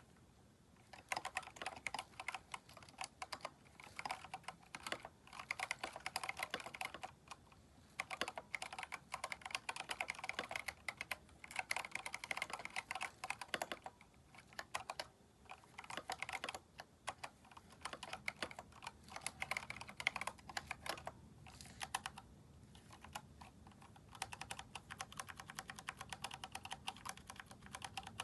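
Keychron K4 mechanical keyboard with aftermarket keycaps being typed on: runs of rapid key clicks in bursts of a few seconds, with brief pauses between them.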